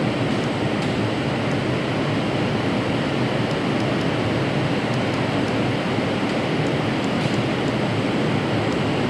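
Steady rushing background noise that keeps an even level throughout, with a few faint ticks.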